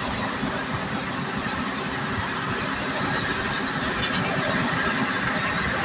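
Steady tyre and engine noise of a vehicle travelling at highway speed, heard from inside the cabin, growing slightly louder near the end.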